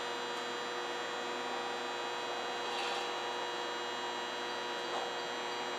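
Steady electrical hum with several high whining tones from a parked, powered-up Nagoya Municipal Subway 2000 series train and the station's equipment, unchanging throughout.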